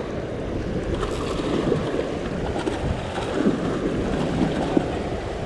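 Sea swell washing and churning against a sandstone rock ledge, with wind on the microphone.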